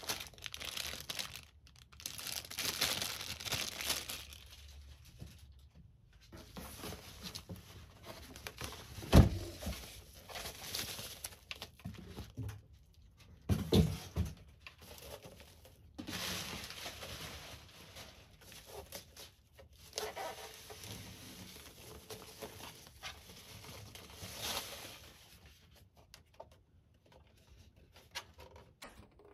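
Bubble wrap and plastic packaging crinkling and rustling in stretches, with cardboard flaps shifting, as a boxed CD player is pulled out and unwrapped. Two sharp knocks, about nine and fourteen seconds in, are the loudest sounds.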